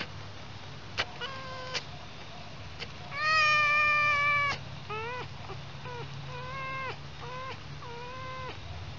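Tame red fox calling while being rubbed on its belly: a short call about a second in, a long, loud call about three seconds in, then a string of about six shorter calls that each rise quickly and then hold.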